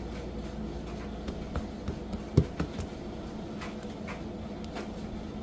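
Hands pressing and patting bread dough flat on a countertop: scattered light taps, with a louder knock a little over two seconds in, over a faint steady hum.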